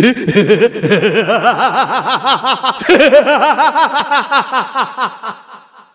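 A person laughing in a long run of quick, even 'ha-ha' pulses; about three seconds in a second, higher-pitched run of laughter starts, falling in pitch and fading out near the end.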